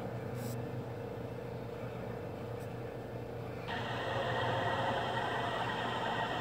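Steady faint background noise with a low hum. About three and a half seconds in, a video starts playing through a phone's speaker and adds a louder, even hiss with no voices.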